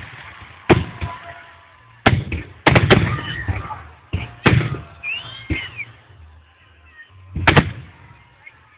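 Festive fireworks salvo: shells bursting overhead in irregular bangs, each followed by a low rumble, with a cluster of bangs a few seconds in and another loud one near the end.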